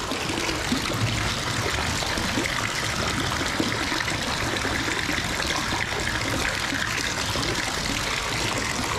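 Water trickling and splashing steadily in a fish-rearing tank as a dip net full of small sturgeon is worked at the surface.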